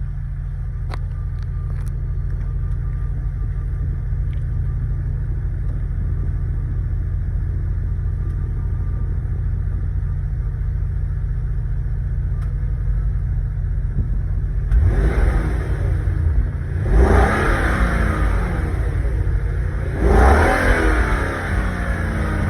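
1998 Jaguar XJ8 Sport's 4.0-litre V8 through its stock exhaust, idling steadily with a low rumble, then revved three times in short blips in the last eight seconds or so.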